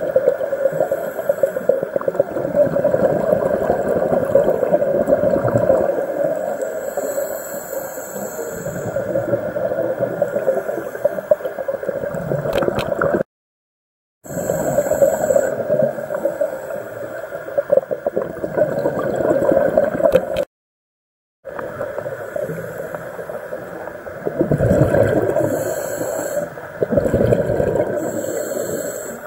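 Muffled underwater noise picked up through an action camera's waterproof housing while scuba diving: a steady rushing and gurgling of water and the diver's breathing and bubbles, swelling louder near the end. The sound drops out completely for about a second, twice.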